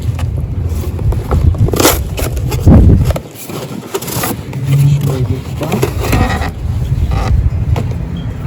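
Boat seat parts being handled, with a few short scraping, rustling noises over a steady low rumble.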